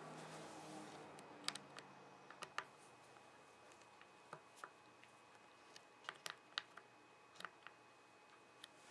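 Small sharp metallic clicks and ticks, irregular and spaced out, of a screwdriver turning and seating in the screws of a Floyd Rose locking nut on a guitar. A faint low tone fades out in the first second and a half.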